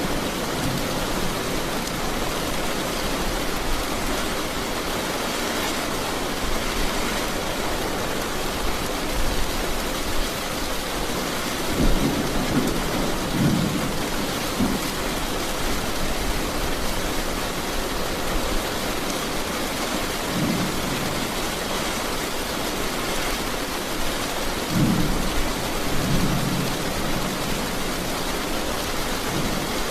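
Steady rain with rumbles of thunder: several low rumbles come about twelve seconds in, another around twenty seconds, and a couple more near the end.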